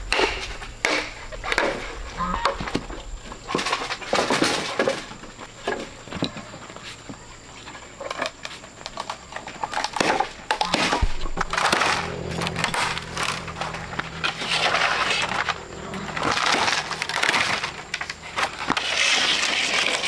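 Green bamboo pole being split lengthwise by hand with a knife: sharp knocks and cracks of the blade and splitting wood, with longer cracking and tearing stretches as the strips are pried apart.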